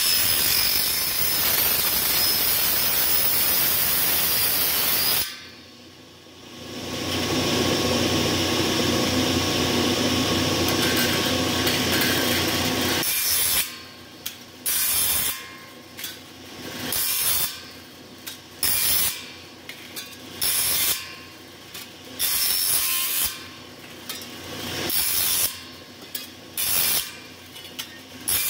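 Table saw blade cutting thin aluminium boat-hull sheet. Two long continuous cuts come first, then from about halfway on a run of short cuts, about one a second.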